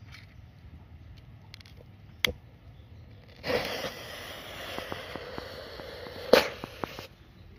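Colour smoke bomb hissing steadily as it burns and pours out smoke, with small crackles and one sharp pop near the end, then cutting off suddenly. A single sharp click comes a second or so before the hiss starts.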